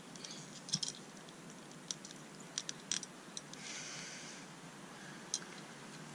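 Pliers and the metal fuel pump hanger being handled: scattered light clicks and taps, with a short scraping rustle just past halfway, as a fuel hose is worked down onto the pump.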